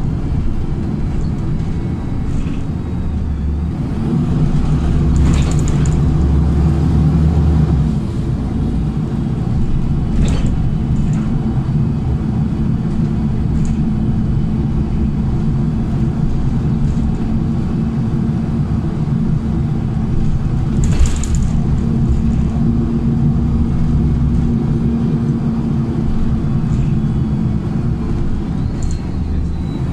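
Cabin noise of a moving LiAZ 5292.67 natural-gas city bus: steady engine hum and road rumble, swelling louder for a few seconds about four seconds in. A brief clatter comes about five seconds in and again near twenty-one seconds.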